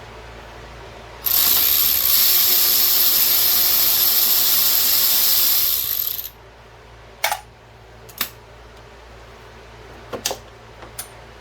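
Power ratchet running a case bolt down for about five seconds, followed by a few sharp metal clicks as parts and tools are handled.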